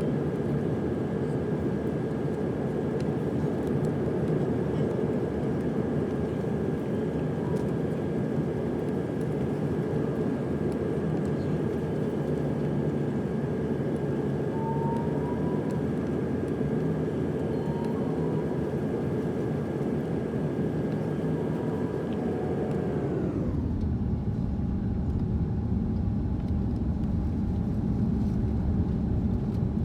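Airbus A330 cabin noise on approach: steady engine and airflow noise with a thin high engine whine. About 23 seconds in, the whine glides down in pitch as the engines come back, the hiss fades, and a deeper low rumble takes over.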